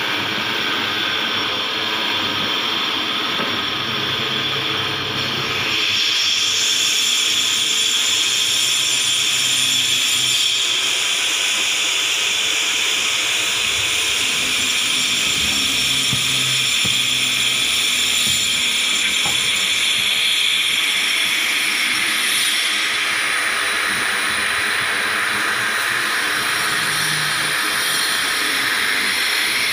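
Loud, steady machine whir and hiss, its pitch sagging slowly and swinging back up near the end.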